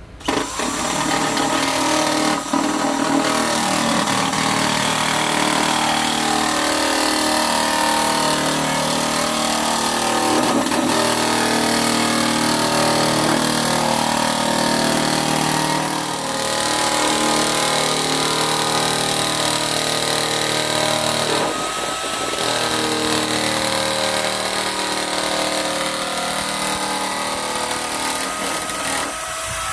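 Parkside power nibbler cutting a sheet of metal along an oiled line: a steady motor whine over the rapid punching noise of the cut, running almost nonstop with a few brief dips.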